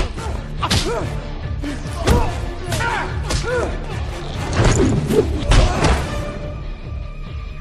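Movie fight soundtrack: a rapid series of punch and body-blow impacts and grunts over dramatic background music. The hits stop near the end, leaving the music with held tones.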